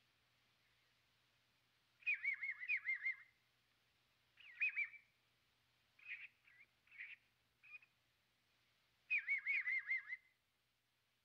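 A bird singing in phrases of rapid, looping whistled notes. A longer warbling run comes about two seconds in and again near the end, with shorter whistled notes between.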